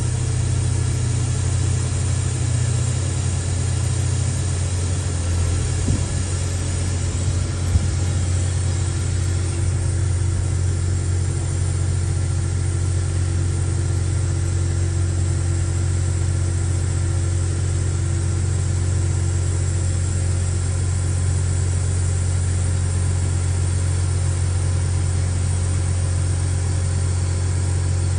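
CAT 320C excavator's diesel engine running steadily, heard from the operator's cab, with two light knocks in the first third.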